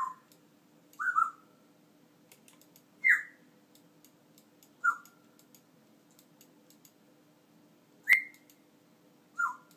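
African grey parrot giving short whistles, each sliding down in pitch, six of them spaced about one to two seconds apart; the one about eight seconds in starts with a sharp click.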